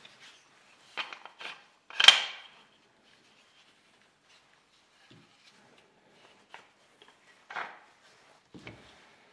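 Wooden parts of a homemade plywood bar clamp clacking as its lever is worked and its sliding jaw is moved along the steel bar. There are a handful of sharp clacks, the loudest about two seconds in, and two more near the end.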